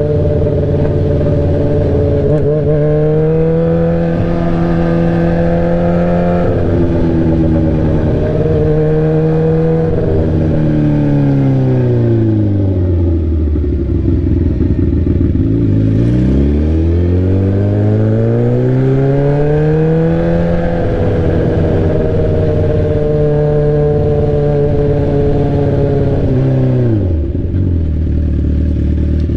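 Straight-piped sport bike exhaust under way, loud throughout. The engine note climbs with throttle and holds, then falls away to a low rumble a little before halfway. It climbs again, holds steady, and drops back down near the end.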